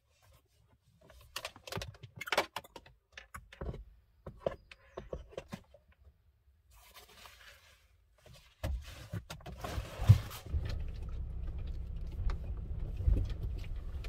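Knocks and rustling as a backpack is put into a Honda Element and someone climbs into the driver's seat. Past the middle a steady low hum sets in: the car's four-cylinder engine running.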